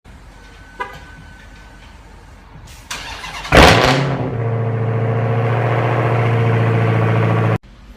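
Car engine cranking and catching with a loud burst about three and a half seconds in, then idling steadily before the sound cuts off abruptly near the end.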